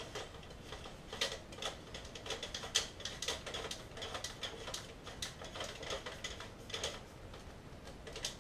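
Plastic parts of an M41K1 spring airsoft rifle clicking and rattling as the silencer is worked back onto the barrel, with irregular sharp clicks throughout.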